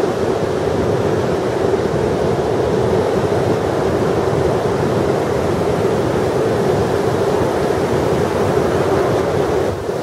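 Heavy Atlantic surf: large waves raised by offshore storms breaking continuously, heard as a loud, steady wash, with wind on the microphone.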